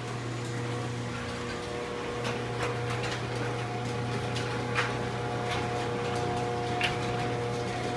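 Liftmaster 1/2 horsepower chain-drive garage door opener running as it closes the door: a steady motor hum, with a few sharp clicks along the way.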